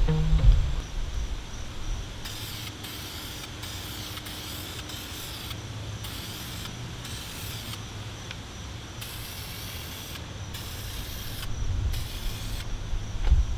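Aerosol spray can hissing in a string of passes, starting about two seconds in, each lasting a second or two with short breaks between: primer being sprayed over a filled rust spot on a car body panel.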